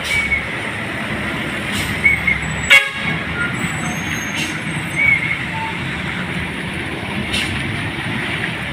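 Heavy diesel fuel tanker trucks running slowly through a hairpin bend, with a steady engine drone. One short horn toot sounds about three seconds in.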